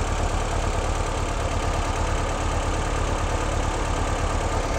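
1958 Porsche 356A's air-cooled flat-four engine idling steadily, its idle being trimmed down slightly while the twin Zenith carburetors are balanced.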